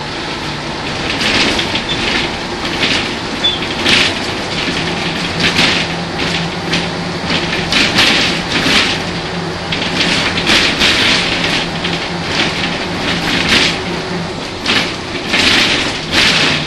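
Ikarus 280 articulated bus heard on board: its Rába D10 six-cylinder diesel engine running with a steady low drone, and frequent short rattles and knocks.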